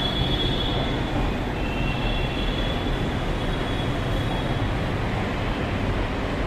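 Delhi Metro train running on the elevated track: a steady rumble with a thin, high wheel squeal that fades out about halfway through.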